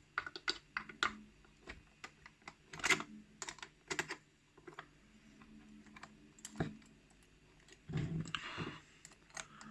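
Irregular small metal clicks and taps from a small flathead screwdriver working at the screw of a Sterling rim cylinder lock, with a longer, louder rustle about eight seconds in.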